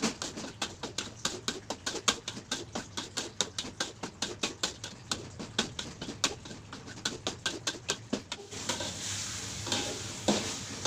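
Metal spatula scraping and tapping a wok in quick strokes, about five a second, stirring ground green chili paste frying in oil. Near the end the strokes slow and a steady hiss of frying comes up.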